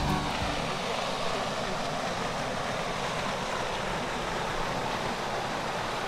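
Steady, even rushing noise with no distinct events. The tail of background music fades out at the very start.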